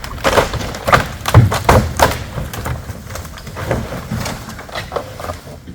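Old barn boards and timbers cracking and splintering under strain, a quick run of sharp snaps and thuds that is loudest in the first two seconds and then thins out.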